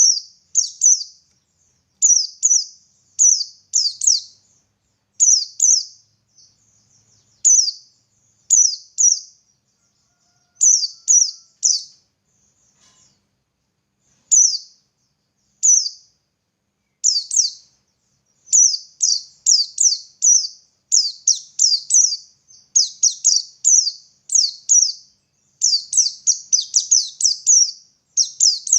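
White-eye (pleci) singing: short, high notes, each falling quickly, in clusters of two or three with pauses between. The notes come faster and more densely in the last third.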